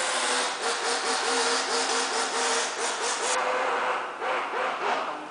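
Scratchy rubbing or scraping by hand in quick back-and-forth strokes: a rasping noise with squeaky tones, which stops about three seconds in and is followed by a few shorter strokes.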